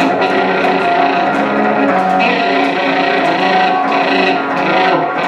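Live instrumental music: an amplified plucked string instrument played through effects, with a steady rhythmic pulse.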